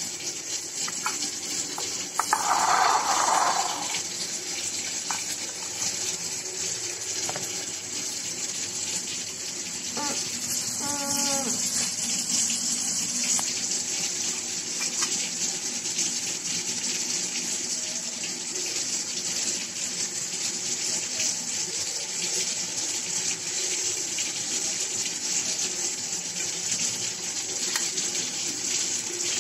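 Steady hiss like running water, with a short louder burst about three seconds in and a brief wavering pitched sound around ten seconds in.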